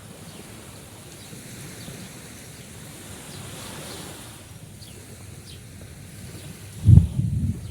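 Sea surf washing as a steady hiss. About a second before the end a sudden low rumble of wind buffeting the microphone, the loudest moment.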